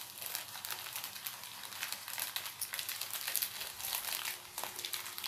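Plastic mailer bag crinkling and crackling as it is handled and pulled at by hand to tear it open, a continuous run of small crackles.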